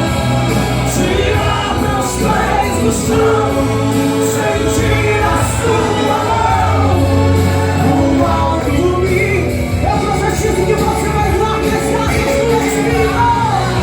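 Live gospel worship music: a voice singing over a steady bass line with drum and cymbal hits, in a large hall.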